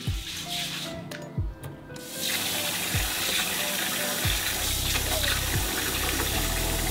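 Hands rubbing wet rice in a stainless steel bowl in a sink. About two seconds in, the kitchen tap opens and runs a steady stream of water into the bowl as the rice is washed. Soft background music plays underneath.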